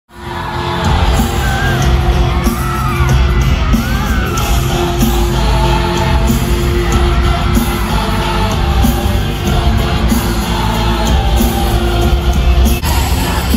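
Pop-rock band playing live in an arena, heavy bass and drums under a held note, with the crowd screaming and whooping over it throughout.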